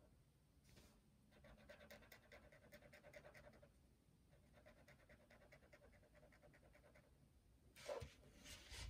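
Faint, fast back-and-forth scratching of a brush-tip marker colouring on paper, in two runs of quick strokes, followed by louder handling noise near the end.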